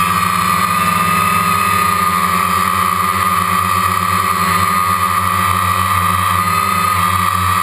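DJI Phantom quadcopter's motors and propellers buzzing steadily in flight, picked up by a GoPro in a waterproof case mounted on the drone: an even hum with a strong mid-pitched tone over a low drone.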